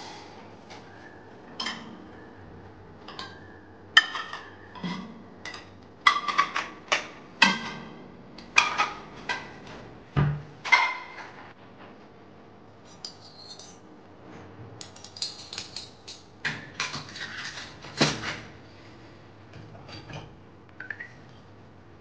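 Metal pots and pans clanking as they are handled and lifted out of a dishwasher's racks: a run of sharp knocks with a short metallic ring, busiest in two spells, one in the first half and one a little after the middle.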